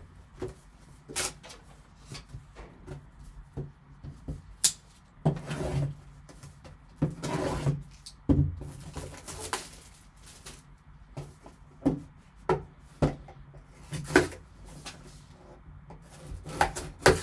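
Handling and opening a cardboard trading-card box: rustling and crinkling of packaging, with scattered knocks and taps as the box is lifted, set down and turned.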